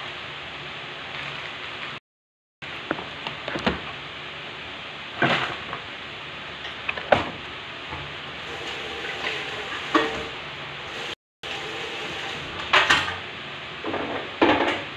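Meat frying in a pan with a steady sizzle, over which utensils and dishes clatter and knock now and then, most busily near the end as the pan is stirred. The sound cuts out completely for a moment about two seconds in and again about eleven seconds in.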